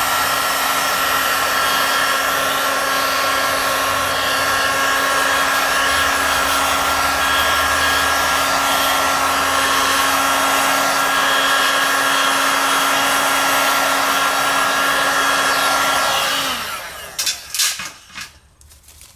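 Electric heat gun (paint stripper) blowing hot air steadily with a fan hum while it melts synthetic fabric. Near the end it is switched off and the fan winds down, followed by a few knocks and handling rustles.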